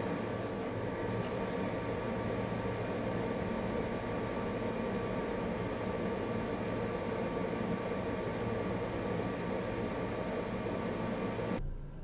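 A steady mechanical hum and hiss with a faint steady whine running through it. It breaks off and changes just before the end.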